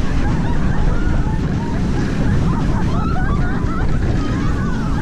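Wind buffeting the microphone and the rumble of a moving roller coaster train, with riders' voices shouting and whooping over it.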